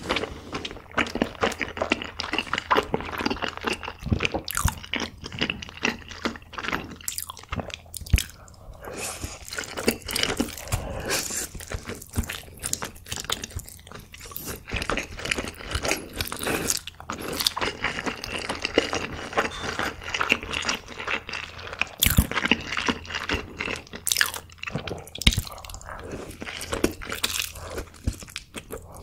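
Close-miked eating of spicy carbonara instant noodles: continuous wet chewing with many sharp mouth clicks, and noodles slurped in from chopsticks.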